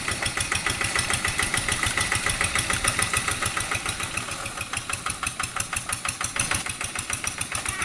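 Quick G1000 hand tractor's single-cylinder diesel engine running under load as the tractor ploughs through paddy mud, a rapid, even chugging.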